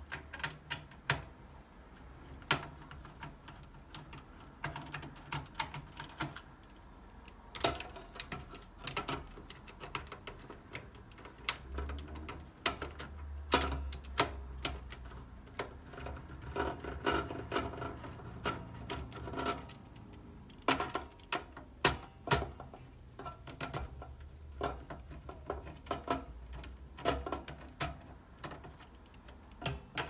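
Screwdriver turning out motherboard screws in a desktop PC's metal chassis: irregular small metallic clicks and taps, some in quick runs of clicks.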